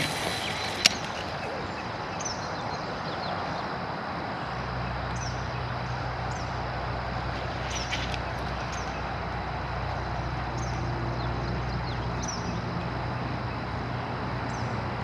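Steady outdoor ambience with a bird repeating a short, high, falling call every second or so. There is a single sharp click about a second in, and a low steady hum comes in about a third of the way through.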